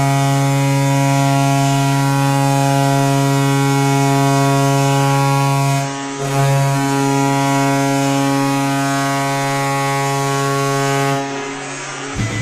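NHL arena goal horn blowing a long, loud, steady blast. It breaks briefly about six seconds in, sounds again and dies away near the end.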